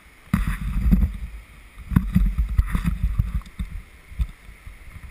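Water splashing and sloshing around a kayak, with irregular low thumps and rumble on the microphone, loudest in the first three seconds and easing off near the end.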